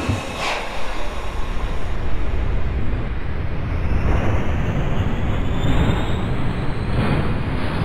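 New York City subway train running on the rails: a loud, steady low rumble with a faint high whine that rises slowly in pitch as the train picks up speed.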